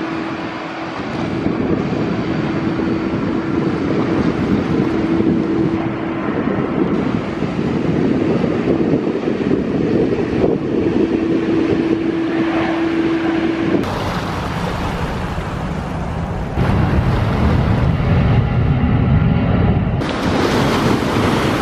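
Jet airliner engines during a landing, with a steady hum over a broad rumble and wind buffeting the microphone. The sound changes abruptly a few times with cuts between aircraft.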